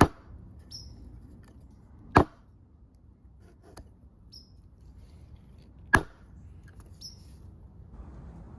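Three sharp wooden knocks, the second about two seconds after the first and the third about four seconds later, from hand woodworking tools striking wood while cutting a mortise and tenon joint.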